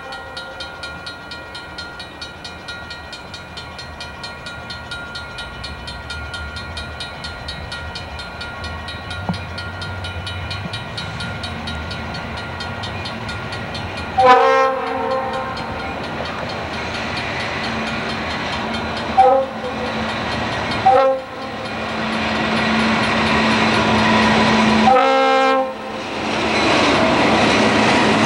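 Southern Pacific diesel locomotives leading a coal train approach and sound the horn four times: long, short, short, long. The engine rumble grows louder and ends in loud engine and wheel noise as the locomotives pass close by.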